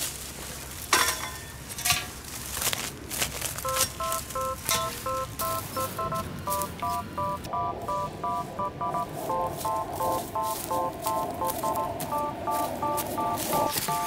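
Footsteps and rustling in dry grass, then about four seconds in a simple background tune of short electronic beeping notes starts, hopping between a few pitches in a steady rhythm, with faint rustling under it.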